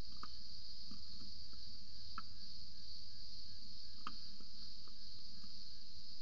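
Steady high-pitched drone of an insect chorus, with a few short, irregular ticks over it.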